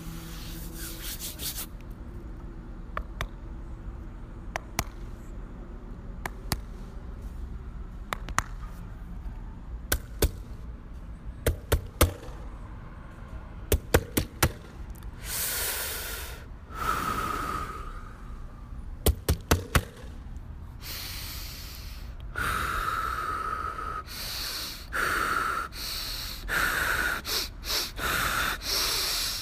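Sparse sharp clicks and hits, some in quick clusters of three or four. From about halfway come heavy breaths, gasps and exhalations that repeat roughly once a second near the end.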